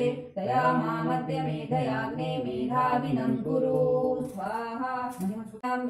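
A small group of voices chanting havan mantras together in unison, holding long notes, with brief breaks between phrases near the start and near the end.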